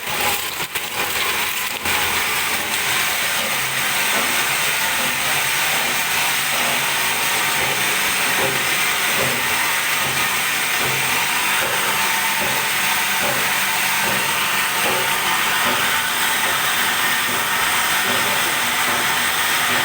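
Crystal tube-ice machine running: a steady loud hiss with an irregular light rattle and knocking under it, and a few sharp clicks in the first couple of seconds.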